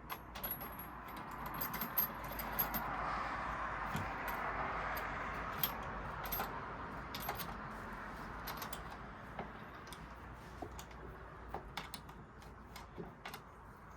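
Scattered light clicks and clinks of sofa hardware and parts being handled during flat-pack assembly, over a soft hiss-like rustle that swells about two seconds in and fades after the middle.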